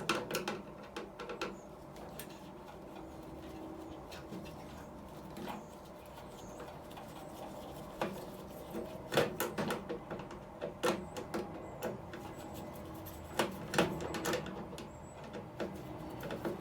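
Scattered clicks and knocks of tools and metal parts being handled as a microwave oven is dismantled, likely screws being undone around its circuit boards. Quieter in the first half, with clusters of sharper knocks later on.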